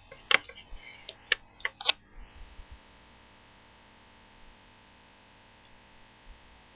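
A paintbrush tapping and clicking against a plastic paint palette while gold paint is mixed: several sharp light clicks in the first two seconds, then only a faint hum.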